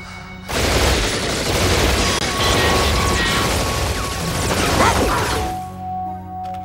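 Sudden loud burst of gunfire with crashing impacts, starting about half a second in and lasting about five seconds, then cutting back to background music.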